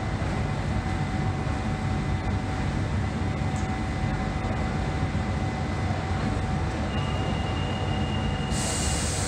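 London Underground Central line 1992-stock train standing at the platform with its doors open, its equipment giving a steady low hum with faint steady tones over it. Near the end a steady high tone sounds for about two seconds, and a hiss starts just before the end.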